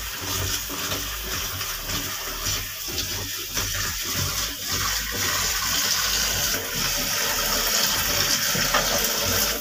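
Tap water running and splashing into a plastic colander and steel bowl as chopped green vegetables are rinsed by hand; a steady rushing that grows a little louder about halfway through.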